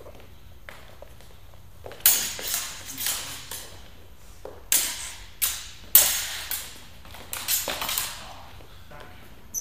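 Training swords clashing repeatedly in sparring: sharp metallic strikes with short ringing, coming in quick flurries of blows that begin about two seconds in.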